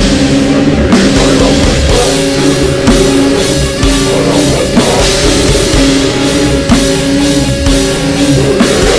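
Loud heavy metal music: low held chords changing about once a second over a full drum kit with cymbals.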